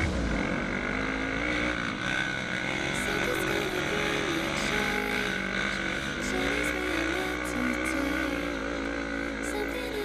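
Yamaha Raptor 350 quad fitted with a swapped-in Honda CB500 parallel-twin engine, revving and easing off as it rides a rough dirt trail, its pitch swelling up and falling back several times.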